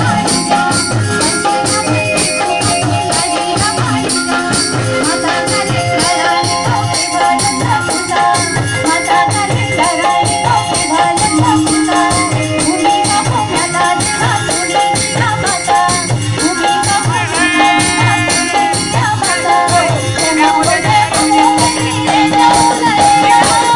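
Uptempo Uttarakhandi folk dance music: a steady drum beat with a rattling high percussion and a melody line over it.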